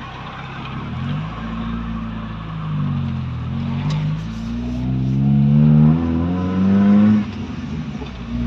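Toyota Corolla's 2E carbureted four-cylinder engine accelerating through the gears: the revs climb, fall at a gear change about three seconds in, then climb again and fall at another shift near the end. It pulls cleanly with its ignition timing just corrected.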